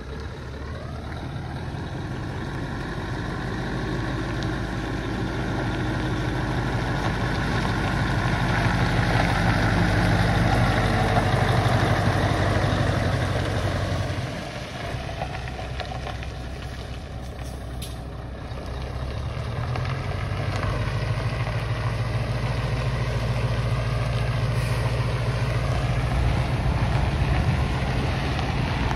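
1995 Scania R143HL 6x4 tipper truck's 14-litre V8 diesel running as the truck drives up, passes close by and pulls away. The engine grows steadily louder as it approaches, dips about halfway through, then builds again.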